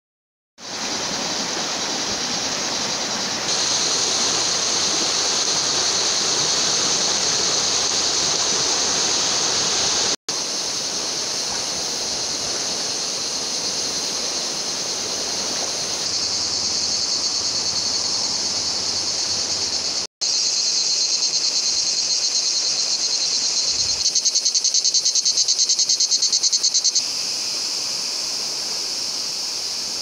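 River rushing over rapids, a steady hiss of fast water, fullest in the first third, under a loud, shrill, unbroken chorus of insects. The insect sound pulses rapidly for a few seconds near the end, and two brief gaps of silence break the sound.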